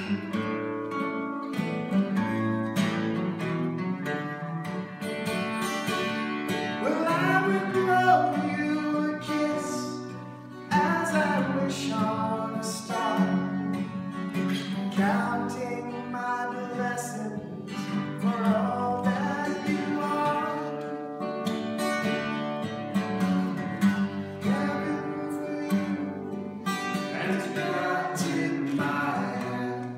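Two acoustic guitars playing a song together, with a melody carried over the chords.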